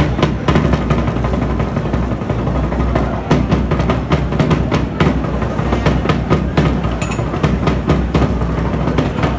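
A string of firecrackers going off in rapid, irregular bangs over the noise of a crowd.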